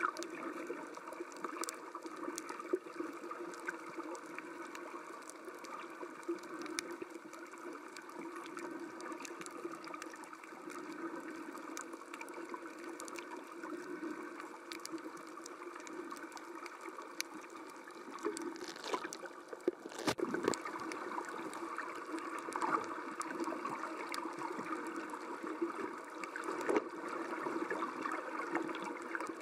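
Underwater sound picked up by a camera filming beneath the surface: a steady, muffled watery rush with scattered small clicks, and a few louder knocks about two-thirds of the way through.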